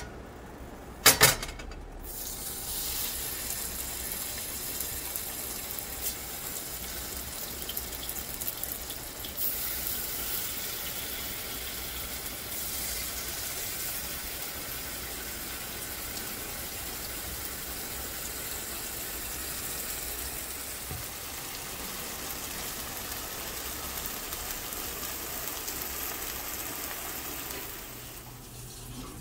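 Haddock fillets pan-frying in hot oil: a steady sizzle that starts just after a brief loud burst about a second in and stops near the end.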